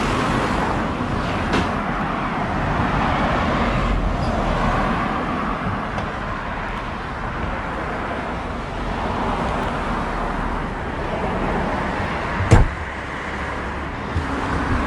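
Car on the move: steady road and engine noise, with one sharp knock about twelve and a half seconds in.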